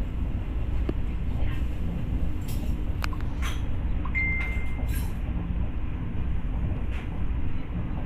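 Steady low rumble of a moving passenger train heard from inside the carriage. A few light clicks and knocks sound over it, and a short high beep comes about four seconds in.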